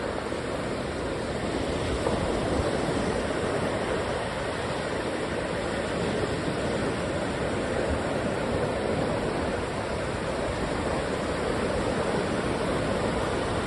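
Ocean surf breaking on a beach: a steady, continuous rushing wash of waves with no single event standing out.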